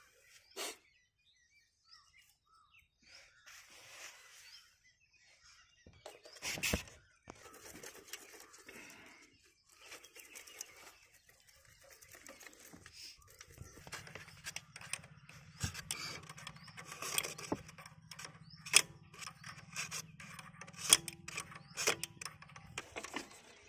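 Scattered light metallic clicks, taps and scrapes of pliers and hands working on the fuel pump of a stopped Topland 5 hp engine. A faint steady low hum comes in about halfway through.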